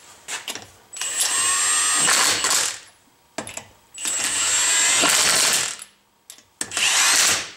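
Impact wrench running lug nuts onto a wheel: three bursts of one to two seconds each, with a high whine, and a few light clicks in between as the socket goes onto the next nut.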